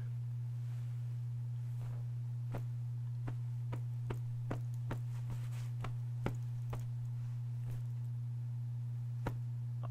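A steady low hum, with a series of faint sharp clicks or ticks about two a second through most of it.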